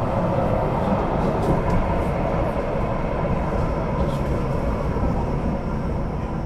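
Duewag/Kiepe B80D light-rail car running along the line, heard from inside the car: a steady rolling and running-gear noise with a faint, steady high whine.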